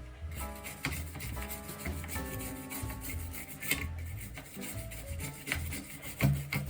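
Repeated scrubbing and rubbing on the plastic parts of an opened Xbox 360 controller as its dirt and grime are cleaned off, in short irregular strokes, over soft background music.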